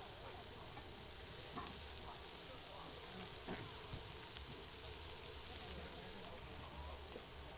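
Egg batter and pork patties sizzling steadily in the round wells of a hot griddle pan, with a few faint knocks.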